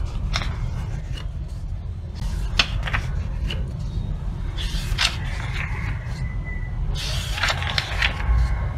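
Pages of a paperback book turned by hand: crisp paper rustles and snaps every second or two, then a quick run of pages riffled near the end, over a steady low hum.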